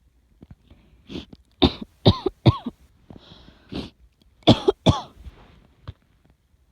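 A person coughing in two fits of several sharp coughs each, with a breath drawn between them. The cough of a chest illness that the uploader labels asthma and pneumonia.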